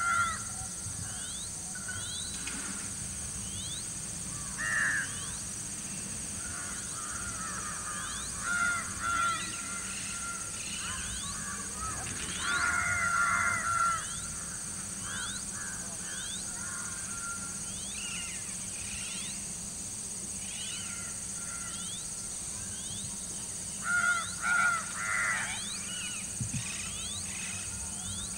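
Natural outdoor ambience: a steady high insect drone, with short clusters of harsh calls coming several times (the longest a little before the middle, another near the end) and small rising chirps in between.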